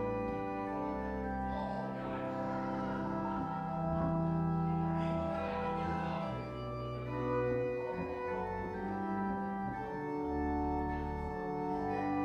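Organ music playing slow, held chords that change every second or two over a low bass line.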